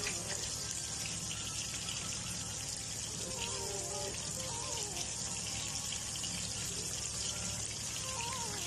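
Salmon steaks shallow-frying in hot oil in a pan: a steady, dense sizzle with fine crackling. A light melody of background music plays over it.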